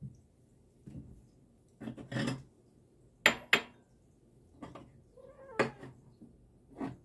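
House cats begging for food: one short, soft meow about five seconds in, among several short sharp clinks and knocks, the loudest a quick pair about three seconds in.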